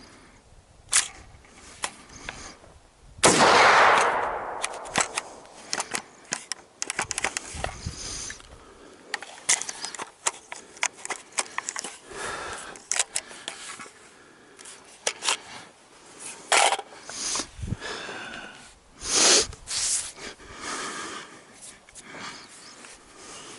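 A single AR-15 rifle shot about three seconds in, its report dying away over about a second, followed by scattered clicks and knocks and several shorter loud noises.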